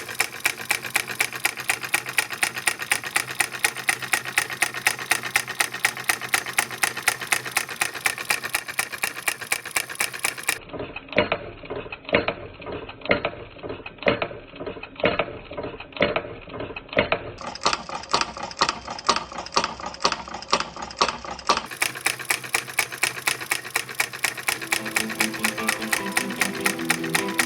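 Homemade 12-volt solenoid engine running: the solenoid plunger pulls in once each turn, making an even, rapid clatter of about five strokes a second. For a stretch in the middle the clatter is slower and uneven. Music comes in near the end.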